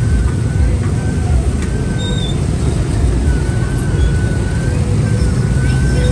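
City street traffic: a steady low rumble of passing engines and tyres, with a thin high tone sounding on and off.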